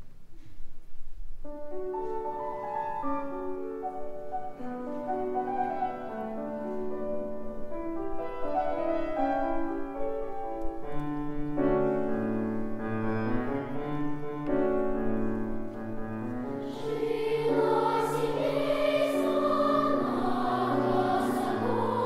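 Piano introduction of steady separate notes, then a children's choir comes in singing over the piano about seventeen seconds in.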